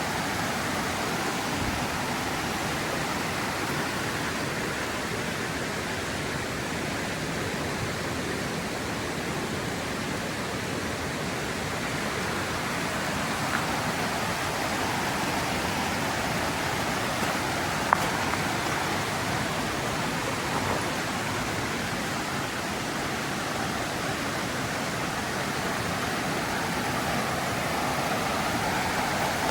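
Mountain river rushing over rocks: a steady, unbroken wash of water noise. A single short click stands out about two-thirds of the way through.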